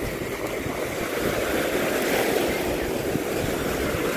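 Shallow sea surf washing up over wet sand, swelling a little about halfway through, with wind buffeting the microphone.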